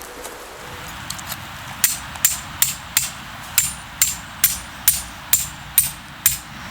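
Repeated hammer strikes, about two a second: a couple of light taps, then eleven sharp blows with a brief pause partway through.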